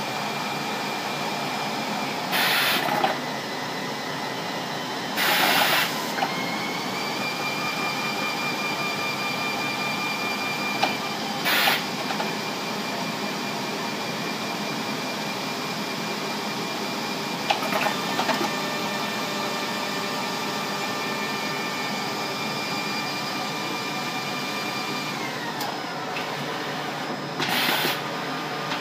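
Circular knitting machine for leggings running steadily with a whirring whine. The whine steps up in pitch about a quarter of the way in and drops back near the end. Five short, loud hissing bursts break through it.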